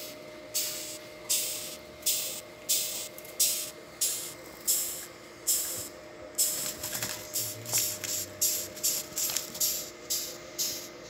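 A rhinoceros beetle making rhythmic swishing hisses that sound like a broom sweeping. The hisses come evenly at first, then speed up to several a second about six seconds in.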